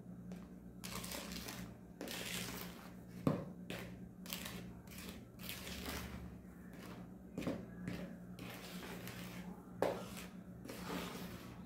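A spoon stirring and scraping thick dough of flour and creamed margarine in a mixing bowl, in repeated rasping strokes, with a few sharper knocks of the spoon against the bowl.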